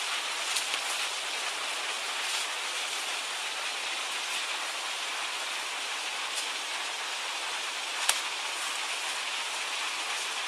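Steady rushing noise with a few sharp clicks; the loudest click comes about eight seconds in.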